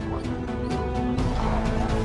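Tense cinematic orchestral score with sustained low notes and a steady pulse of sharp percussion hits.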